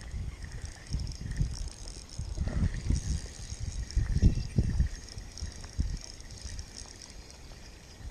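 Water sloshing and lapping close to the microphone at the waterline, in irregular low pulses, with a faint hiss above.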